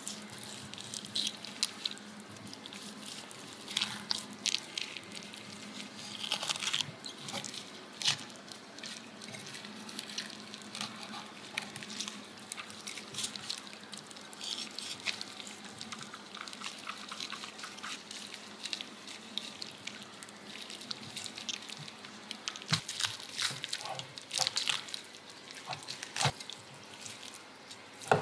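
Chef's knife slicing boiled pig's trotter and cutting down to a wooden cutting board: irregular soft clicks and knocks with small wet sounds from the meat, over a faint steady hum.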